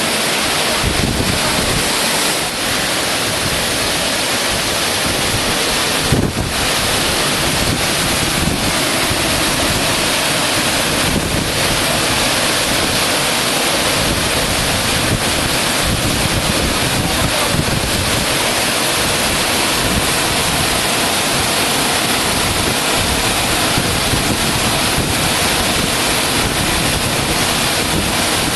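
Korbu waterfall's falling water making a loud, steady rushing noise, with a brief knock about six seconds in.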